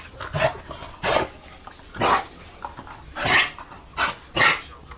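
Pet dogs barking, about six short barks at uneven intervals, as they are urged to search.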